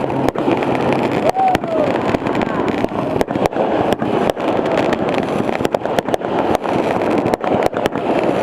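Aerial fireworks going off in quick succession: many sharp cracks and pops over a continuous crackling din, with a whistle that slides in pitch between one and two seconds in.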